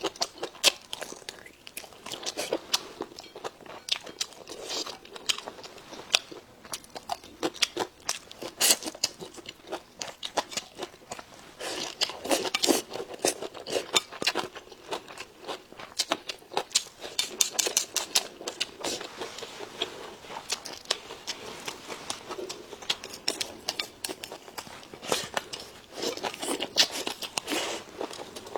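Close-up eating sounds: chewing and crunching food, with many irregular sharp clicks.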